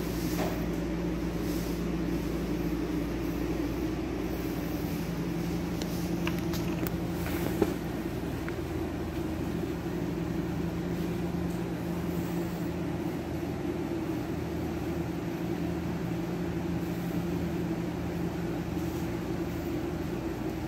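A steady machine hum, like a room fan or air conditioner running, with faint rustles of bed sheets being handled and one sharp click about seven and a half seconds in.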